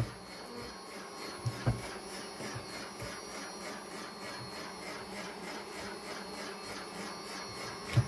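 A steady whirring hum, with a couple of light knocks about a second and a half in.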